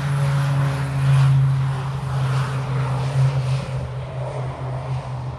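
Basler BT-67's twin Pratt & Whitney Canada PT6A-67R turboprops at takeoff power as the aircraft rolls down the runway and lifts off: a steady low propeller tone over a rushing noise, slowly fading in the second half.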